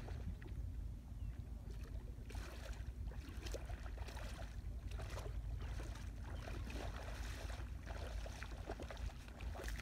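Wind rumbling on the microphone over shallow water washing on a sandy shore, with bursts of splashing every second or two.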